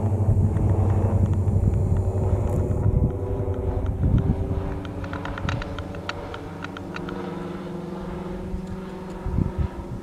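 Diamond DA42 twin-engine light aircraft passing overhead: a steady low propeller drone, loudest in the first few seconds and fading after about four seconds. A run of faint clicks in the middle.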